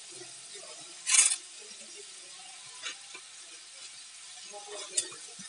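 Soaked poha (flattened rice) being tipped into a pan of frying vegetables, with a low sizzle. There is a brief rush of noise about a second in as a batch goes in, and a few light clicks, the sharpest near the end.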